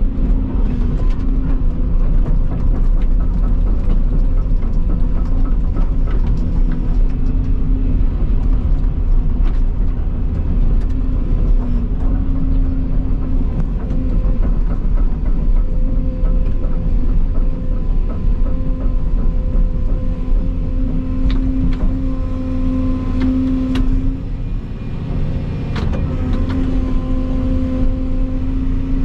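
Volvo EC220 hydraulic excavator running under work: a steady low engine rumble with a pitched hydraulic whine that wavers slightly in pitch as the load changes. A few sharp knocks come in the last third.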